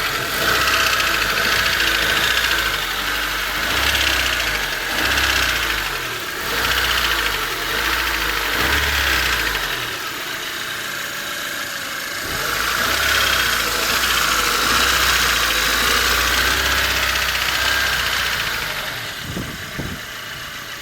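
Honda Civic D16Y8 1.6-litre SOHC VTEC four-cylinder engine running with a ticking noise, heard mainly when the engine is hot. The tick persists after a valve adjustment, and compression is an even 185 PSI on all four cylinders.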